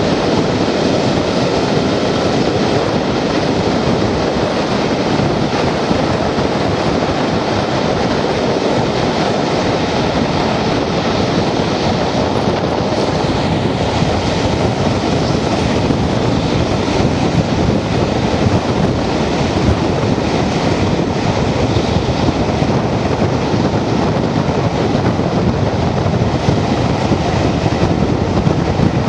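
Steady rush of wind over a microphone held out of an open carriage window, over the running noise of a diesel-hauled train at speed.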